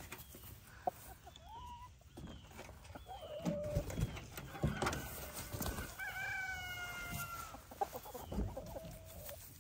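A flock of chickens clucking and calling, with a rooster crowing in one long call about six seconds in. A few thumps fall among the calls.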